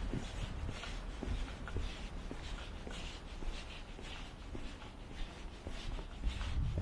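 Footsteps of a person walking, a short scuffing crunch about every half to two-thirds of a second, over a steady low outdoor rumble.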